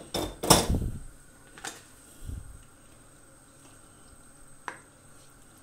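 A spoon stirring marinated beef strips in a nonstick frying pan: a loud scraping clatter in the first second, then a few light knocks of the spoon against the pan.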